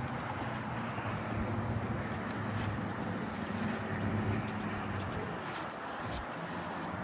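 Steady low mechanical hum under a haze of outdoor noise, with a few faint light taps near the end.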